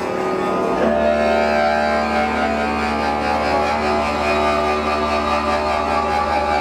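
Instrumental music of long held, droning notes over a steady low hum, with a brief shift in pitch about a second in.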